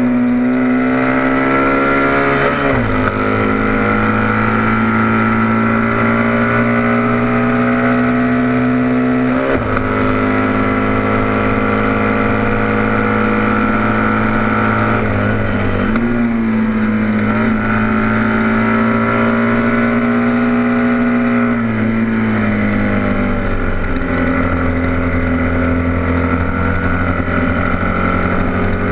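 Onboard sound of a vintage production racing motorcycle's engine running hard at high revs. Its pitch steps down and up with gear changes about three seconds in, near ten seconds, near sixteen seconds and again a little after twenty-two seconds.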